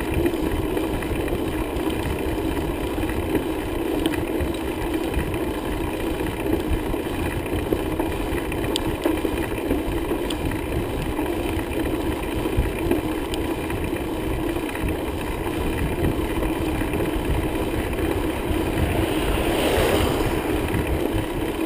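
Steady rumbling noise of riding a bicycle: wind on the microphone and road noise, with a few light clicks and a louder swell of noise near the end.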